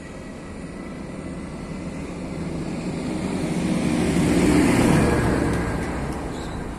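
Long freight train of loaded car-carrier wagons rolling past, a steady rumble of wheels on rail that swells to its loudest about four to five seconds in and then eases.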